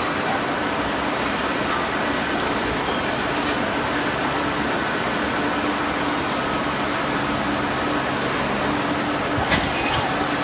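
CNC lathe with an automatic workpiece loader running: a steady machine hum with a faint held tone, and a single sharp knock about nine and a half seconds in.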